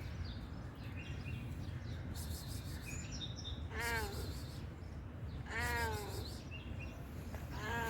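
A cat meowing three times, each meow about half a second long and rising then falling in pitch, the middle one the longest. Small birds chirp faintly over a steady low outdoor rumble.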